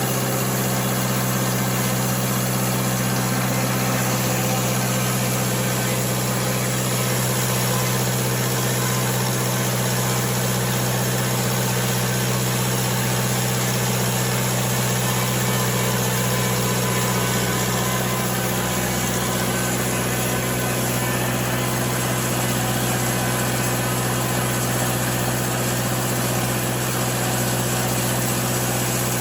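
Sawmill's engine running steadily at an even, unchanging speed.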